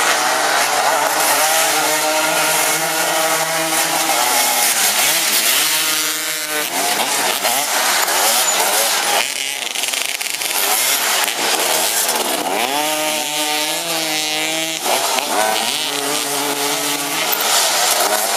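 Racing engines running at high revs, several at once, their pitch rising and falling as they go through gears and pass by, with two clear pass-bys about six and thirteen seconds in.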